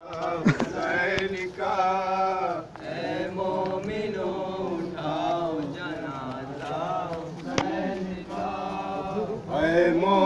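Men chanting an Urdu nauha, a Muharram mourning lament, in a slow rising and falling melody over a steady low hum. Two sharp knocks cut in, one near the start and one about three-quarters of the way through.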